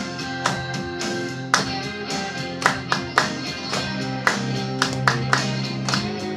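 Instrumental music of a song's introduction: held chords with sharp percussion hits every half second or so, and no voice yet.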